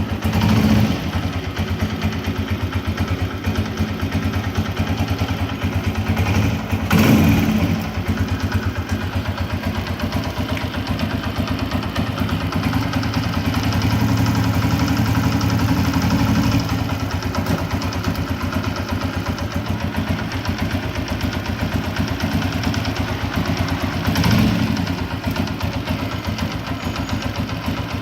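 Honda CG 125 single-cylinder four-stroke motorcycle engine idling and revved briefly a few times, with a knocking from inside the engine.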